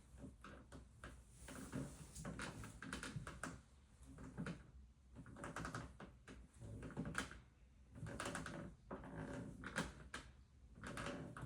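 IKEA bunk bed creaking and clicking in four bursts, about every three seconds, as weight shifts on it: an abnormal noise that a repair technician traced to the slatted bed base.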